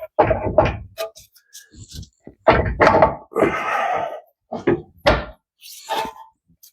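Several irregular metal thunks and knocks, with a longer rattling scrape about halfway, as a rear upper control arm is worked into position against the wheel knuckle.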